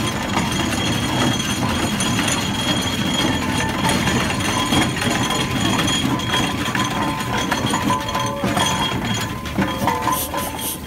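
Fowler steam traction engine running in steam, with a steady mechanical rumble and metallic clinking from its motion.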